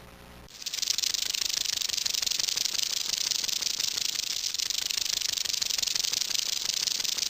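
A steady, high-pitched rattling buzz of very rapid dry pulses from an animal, starting about half a second in.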